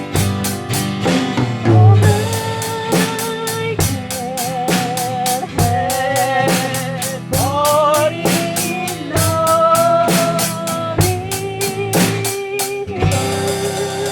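Background music: a steady drum beat under a wavering melody line.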